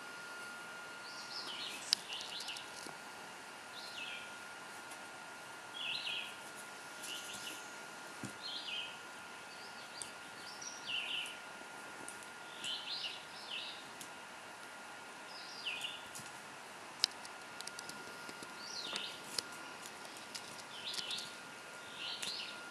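A small bird chirping over and over, short high calls every second or two, over a faint steady whine, with a couple of sharp clicks.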